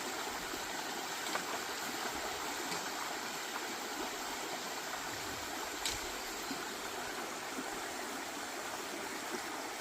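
Steady rush of a stream's flowing water, an even wash of noise with a faint click or two.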